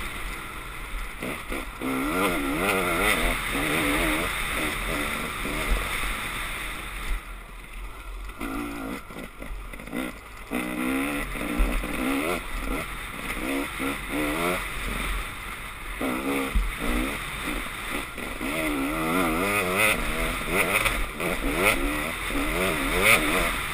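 Dirt bike engine on a motocross track, revving up and dropping back again and again as the rider works the throttle and gears, with wind rumble on the camera mic. The engine note eases off for a few seconds in the middle, then climbs again.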